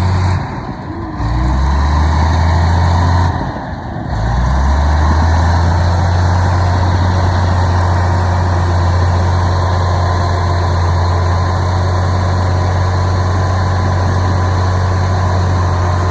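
Komatsu D65E bulldozer's diesel engine running with a steady low drone. It dips briefly twice in the first few seconds, its pitch shifting each time, then runs evenly.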